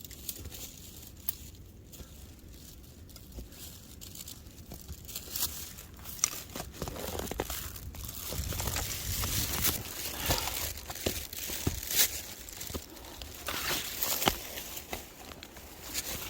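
Footsteps crunching in snow: irregular crunches, sparse at first, then louder and more frequent from about five seconds in.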